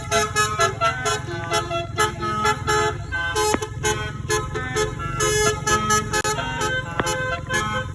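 Bus 'basuri' telolet horn, a multi-tone air horn with 36 notes, playing a fast melody note after note over a steady low rumble.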